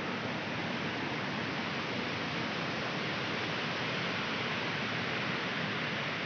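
Fast-flowing floodwater rushing across a submerged road: a steady, unbroken water noise.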